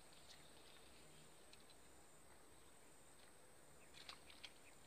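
Near silence: faint outdoor ambience with a steady high-pitched hiss, a few soft ticks, and a short cluster of light clicks about four seconds in.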